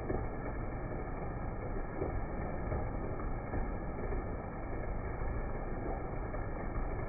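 Heavy rain falling steadily: a dense, even wash of noise that sounds dull and muffled, with no high hiss.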